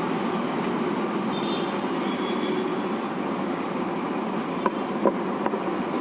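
Steady background noise with a few light clicks near the end.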